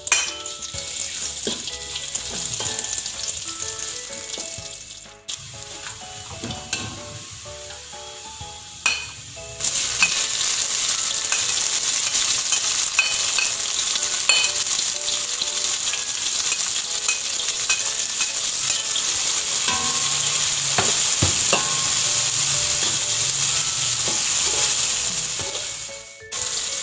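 Sliced onion, tomato and red chilli sizzling in hot oil in a wok, stirred with a metal spatula that knocks and scrapes against the pan a few times. The sizzle turns much louder and steadier about ten seconds in, as more ingredients go in.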